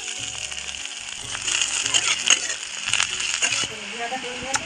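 Sliced onions and green chillies sizzling in hot mustard oil in a metal kadai, with many small crackles and pops and one sharp click near the end. Background music plays underneath.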